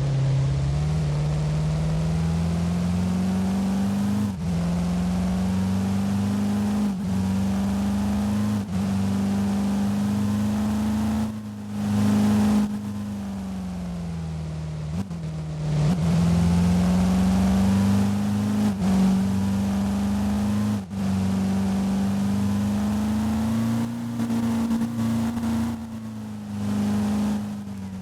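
A motor vehicle's engine running under load: its pitch climbs over the first few seconds, holds, drops back and climbs again about halfway through, then falls near the end, with brief dips every few seconds.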